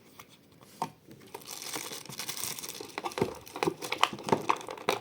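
Packaging crinkling and rustling as the doorbell's box contents are unpacked by hand: a dense run of small crackles that starts about a second in.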